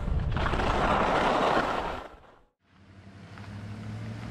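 Skis hissing and scraping over snow on a fast descent, fading out about two seconds in. A low, steady vehicle engine hum then fades in.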